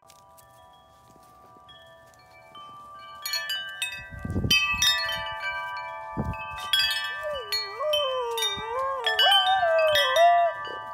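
Metal tube wind chimes ringing as a golden retriever knocks them with her head, faint at first and struck harder from about three seconds in, with a couple of low thuds. From about seven seconds in the dog howls along, one wavering howl rising and falling in pitch over the ringing tubes.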